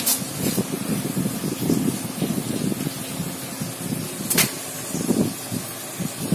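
Vertical engine head surface grinding machine running without a cut: a steady hiss with a low hum under it. Uneven rumble and sharp knocks, one near the start and a louder one about four seconds in, come from the camera being handled.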